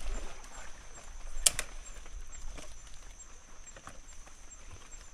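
Rustling and scattered light knocks as a hand gropes among dead wood, leaf litter and rock, with one sharp click about a second and a half in. Night insects keep up a steady high chirping behind.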